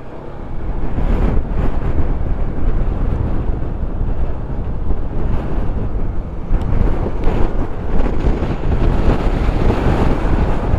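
Strong wind buffeting the microphone of a rider on a moving Honda ADV 160 scooter: a loud, rough rush that builds over the first second or two and then keeps on unevenly.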